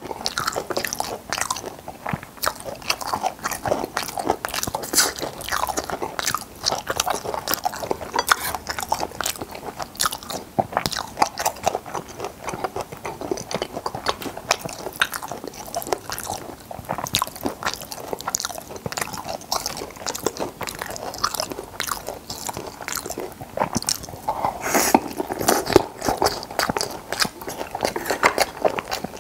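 Close-miked chewing of braised stingray: wet, crunchy bites, with the stingray's cartilage cracking as it is chewed, in a dense, irregular run of crackly clicks.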